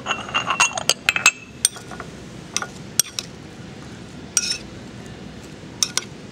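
Metal spoon clinking and scraping against a ceramic bowl while stirring diced tomato and red onion: a quick run of clinks in the first second or so, then scattered single clinks and a short scrape.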